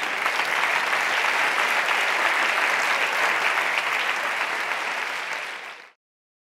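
Studio audience applauding, which stops dead near the end.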